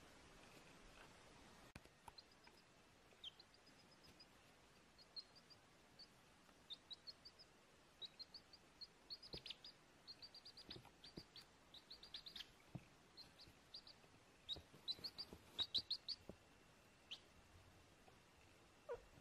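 Baby chick peeping: a string of short, high peeps, sparse at first and coming faster and louder from about eight seconds in.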